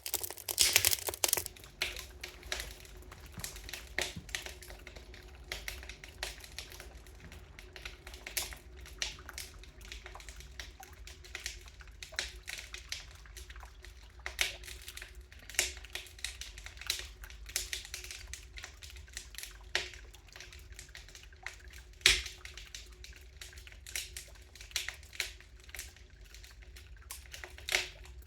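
Wood fire crackling: irregular pops and snaps, with one sharper, louder pop late on.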